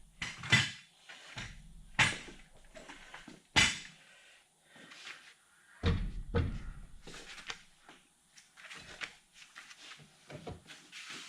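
Sharp metal knocks and clanks from tools and parts being handled on a truck's front wheel and brake assembly: three hard strikes in the first four seconds, a heavier thud about six seconds in, then lighter clatter.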